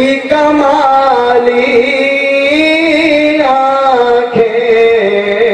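A man singing a naat, an Urdu devotional poem in praise of the Prophet, unaccompanied into a microphone, in long held notes that slide slowly up and down in pitch.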